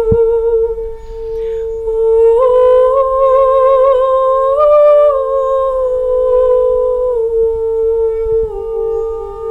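Slow music: one steady held note drones the whole time, and from about two seconds in a second humming, wavering note with vibrato rises above it, swells to its highest about halfway, then sinks back toward the drone.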